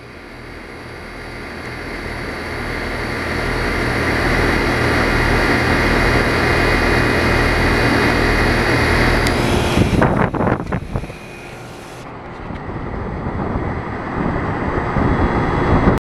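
Trane XL13i central air outdoor unit running: the condenser fan rushes over a steady low hum, getting louder over the first few seconds. About ten seconds in, a few brief rumbles break in, the noise drops for a moment, then builds again.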